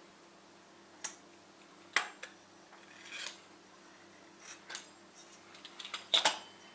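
Sharp metallic clacks and short scrapes of a metal ruler and a pastry wheel cutter handled on a countertop while dough is cut into squares. The loudest clacks come about two seconds in and in a quick cluster near the end.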